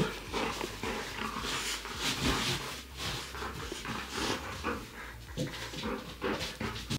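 A dog close to the microphone, making a string of short, irregular breathy sounds.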